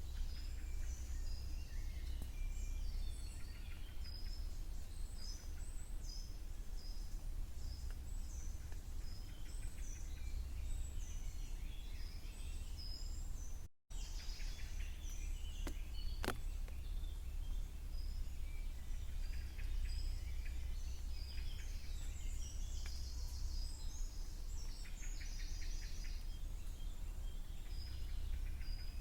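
Several small songbirds chirping and trilling in a spring woodland, with short, high notes scattered throughout over a steady low rumble. The sound drops out completely for an instant about 14 seconds in, and there is a single sharp click about two seconds later.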